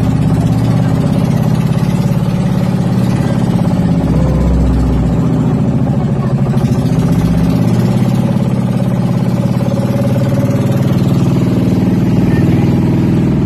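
Small motorized bangka's engine running steadily at cruising speed, with water rushing along the hull.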